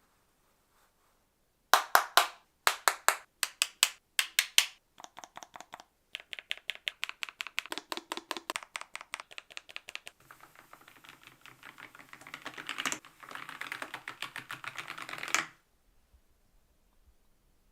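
Typing on a Lofree Flow low-profile mechanical keyboard. It begins with short clusters of loud, separate key presses, moves into a steady run of strokes, then turns to fast continuous typing that stops suddenly a couple of seconds before the end.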